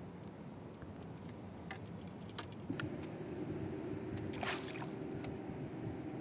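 Water lapping at a small fishing boat, with a few light clicks from a spinning reel being worked in the first seconds. About three seconds in a steady low hum starts and keeps going, and a short hiss comes a little after.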